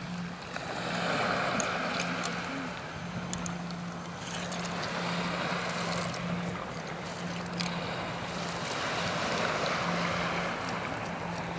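Surf washing on the beach in slow swells about every four seconds, with wind on the microphone. A low steady hum drifts in and out under it.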